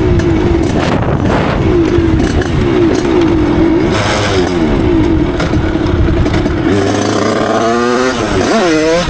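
Derbi Senda moped's two-stroke engine, fitted with a Stage6 88cc cylinder kit and Voca Cross exhaust, running under way with the revs rising and falling. Near the end the revs climb sharply, dip, then climb again.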